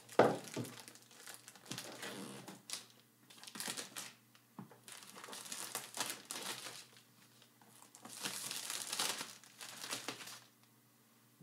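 Drone box packaging being opened and handled: irregular crinkling and rustling of paper and cardboard with scattered sharp clicks, starting with a loud knock and ending with a longer rustle about a second before the end.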